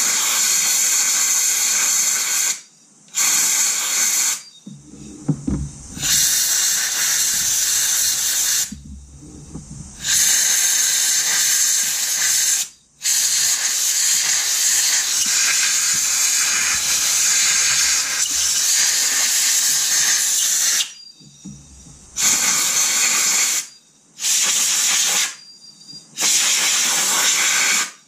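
Compressed-air blow gun hissing in repeated blasts, some short and one about eight seconds long, blowing dirt away from around the spark plugs.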